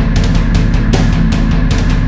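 Loud, hard-driving rock music with a steady fast drum beat.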